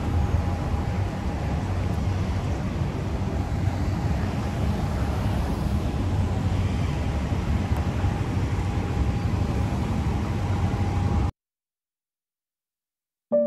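Street traffic ambience: cars driving and idling along a shop-lined street, a steady low rumble with a faint steady hum over it. It cuts off abruptly about eleven seconds in, leaving silence, and soft piano music starts at the very end.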